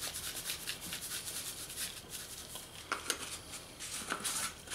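A spice shaker of seasoning shaken over raw meat: a fast, even rattle of granules for about two seconds, then a few light clicks and knocks as the shaking stops.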